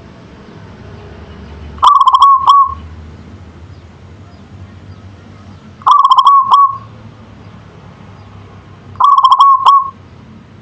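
Zebra dove singing its cooing song three times, about four seconds apart. Each phrase is a quick stuttering run of short notes ending in a brief held coo.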